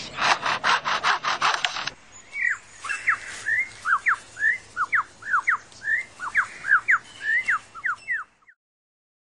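Superb lyrebird singing in mimicry: about two seconds of fast, stuttering rasps imitating a chainsaw, then a long run of clear, sharply falling whistled notes, about three a second, that stops abruptly near the end.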